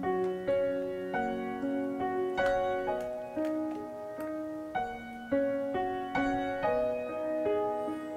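Background piano music: notes struck about twice a second, each starting sharply and fading.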